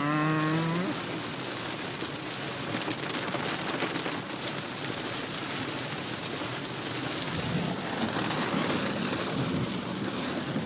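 Heavy rain pouring down on a car, heard from inside the cabin as a dense, steady hiss and patter on the roof and windows. A brief voice sound comes in the first second.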